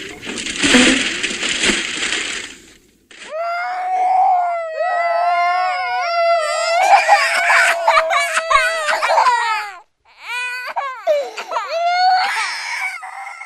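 A high-pitched voice crying in long, wavering wails that bend up and down, with brief breaks between them. It starts about three seconds in, when a noisy passage of music with a low beat cuts off.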